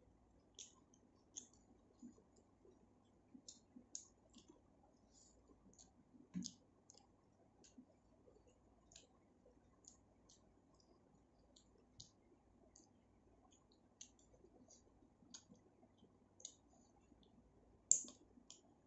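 Close-miked eating of chicken biryani: soft, irregular wet mouth clicks and lip smacks while chewing, about one or two a second, with a louder click near the end.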